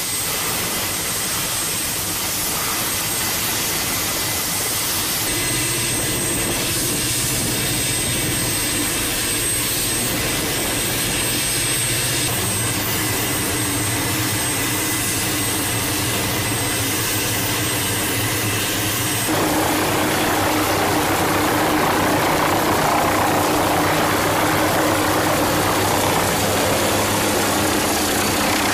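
MQ-8B Fire Scout unmanned helicopter's turboshaft engine and rotor running steadily with a high turbine whine. About 19 seconds in the sound changes abruptly and grows slightly louder.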